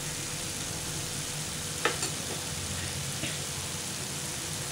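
Potatoes and gongura (sorrel) leaves frying in oil in a nonstick pan, a steady sizzle. A sharp tap comes just under two seconds in and a lighter one a little past three seconds.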